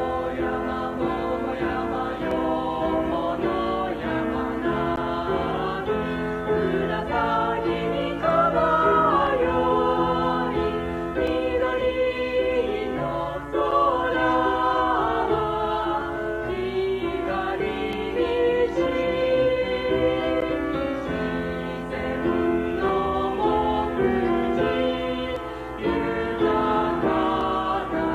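A high school's song sung by a choir with accompaniment, in sustained, changing notes.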